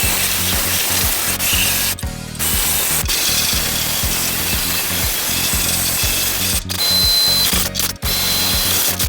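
A power tool running steadily on sheet-metal bodywork, over background music with a steady beat; the tool noise breaks off briefly about two seconds in and twice near the end.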